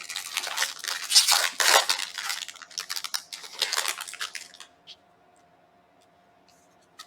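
Foil wrapper of a Disney Lorcana booster pack crinkling and rustling as it is opened, for about four and a half seconds, then stopping; a single faint click near the end.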